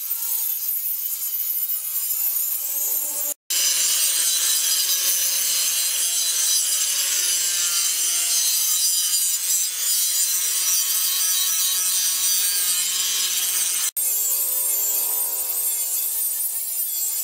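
Angle grinder with a flap disc grinding a steel blade: a steady, loud hiss of abrasive on metal over the motor's whine. The sound breaks off for an instant twice, about three and a half and fourteen seconds in.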